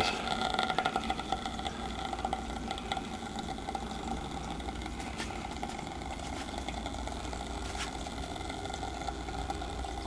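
Small battery-powered smoke-puffer fan running with a steady, light whir while it puffs smoke, over a low background hum.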